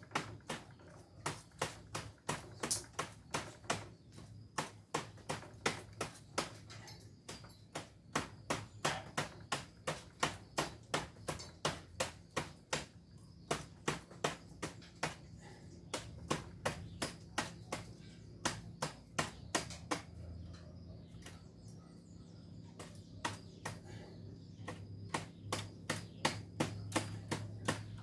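Rapid series of sharp clicks, about three a second, in runs with brief pauses, over a low hum that grows louder near the end.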